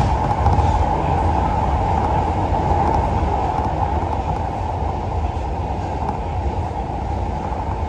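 Kita-Osaka Kyuko 9000 series electric train running at speed, heard from inside the driver's cab: a steady, even rumble of wheels on rail and running gear.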